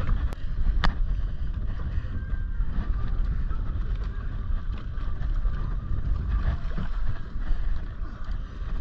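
Steady wind rumble on the microphone over water noise around a small open boat, with two sharp clicks in the first second.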